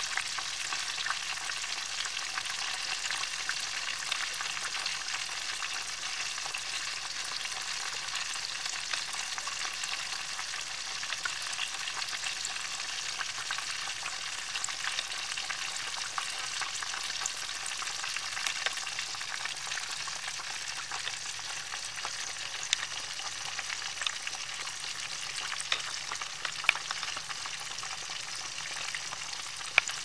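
Whole chicken deep-frying in hot oil in a metal pan: steady sizzling with many small crackles, and a few louder pops in the last third.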